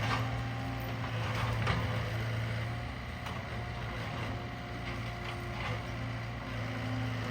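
Diesel engine of a Cat 299D2 compact track loader running steadily, with a few short clanks and rattles.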